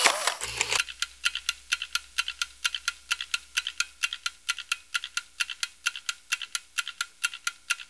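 Typing on a small keyboard: a fast, very even run of key clicks, about five or six a second.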